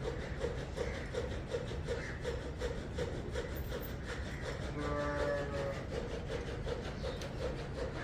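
A machine running with a steady low rumble and a regular rhythmic beat about three times a second. About five seconds in, a short steady horn-like tone sounds for under a second.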